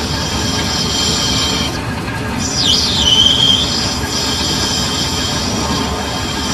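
Lathe cutting tool squealing against a turning steel shaft: a steady high-pitched screech over the machine's low running rumble. About two seconds in it breaks off, returns as a falling squeal that holds one lower note for about a second, then carries on.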